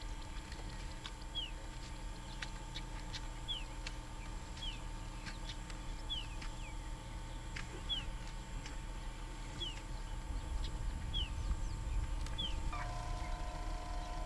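A bird repeating a short, high, falling call about once every second, stopping about 13 seconds in, over low outdoor rumble and a faint steady hum.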